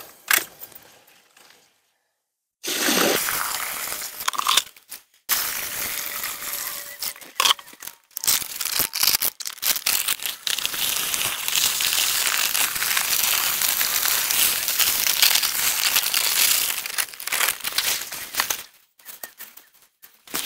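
Plastic bag of Postcrete rustling and crinkling as the dry mix pours out of it into a water-filled post hole, a steady hiss, broken by several sudden stops.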